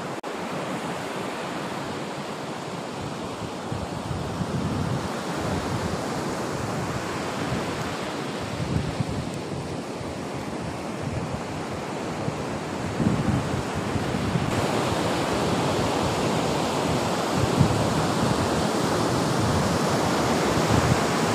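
Sea surf breaking and washing up a sandy beach, a steady rush that swells with each incoming wave every few seconds.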